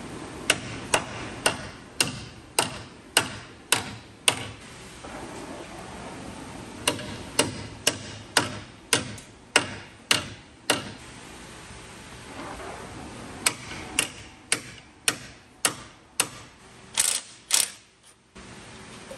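Hammer blows on a steel bolt, about two a second in three runs with short pauses, each ringing briefly: the bolt being driven through the torch-heated steering box plate on the truck frame. Near the end, two short bursts of a cordless impact wrench.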